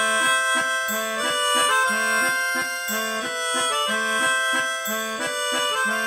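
Upbeat instrumental music with a steady bouncing bass line and a held, reedy, accordion-like lead. It starts abruptly.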